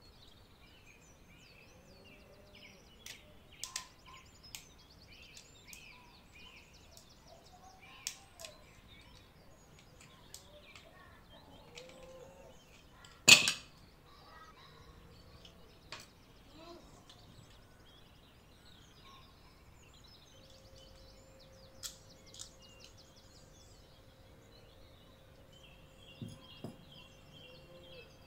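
Scattered small clicks and clatters of a toy airplane's plastic parts and a small screwdriver being handled during disassembly, with one sharp, much louder click about halfway through. Birds chirp faintly in the background, and a faint steady hum begins about two thirds of the way in.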